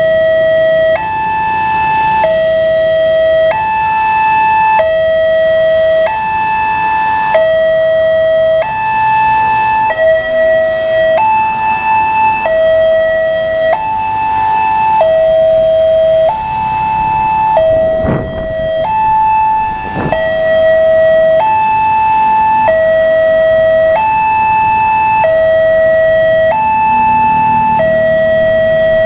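Railway level-crossing warning alarm sounding: an electronic two-tone signal that alternates steadily between a lower and a higher tone, each held a little over a second, warning that a train is approaching. Two short knocks cut through it around the middle.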